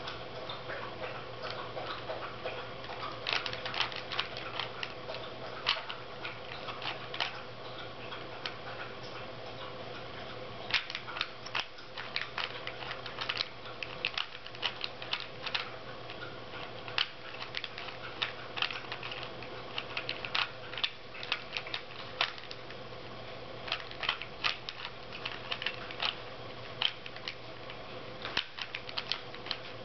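Rubik's Cube layers being turned quickly by hand: rapid plastic clicking and clacking in irregular flurries, over a steady low hum.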